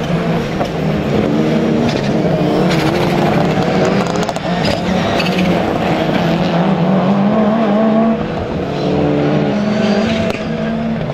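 Several rallycross Super Cars racing, their engines revving up and dropping back through gear changes, with short sharp cracks among them.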